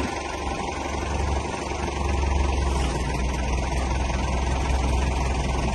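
John Deere 6410 tractor's four-cylinder diesel engine idling steadily, its low running note growing somewhat louder about two seconds in.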